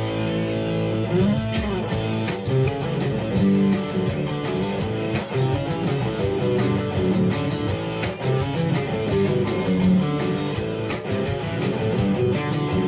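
Instrumental passage of a rock-pop song: guitar playing over a steady drum beat.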